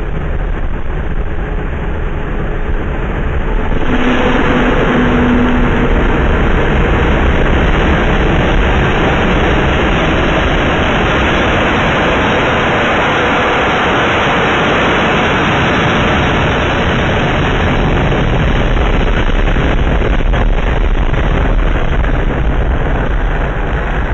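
Jet truck's jet engine running with the afterburner lit: a loud, steady rushing noise that grows louder about four seconds in and holds as the truck makes its pass.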